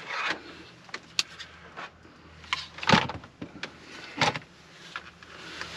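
A few sharp clicks and knocks from handling a portable work light and plugging it into a small 150-watt car power inverter, the loudest about three seconds in, over a faint steady low hum.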